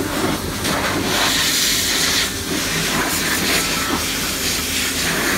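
Pet grooming blower dryer blowing a steady rush of air through its hose onto a cat's fur to dry it.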